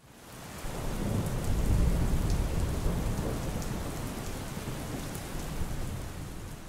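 Thunderstorm: steady rain falling with a low rumble of thunder that swells over the first couple of seconds and slowly dies away.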